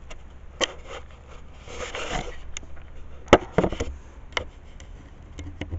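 Handling noise from the recording camera as it is picked up and moved: rubbing, with a longer shuffling swell about two seconds in, and several sharp knocks and clicks, the loudest a little past three seconds.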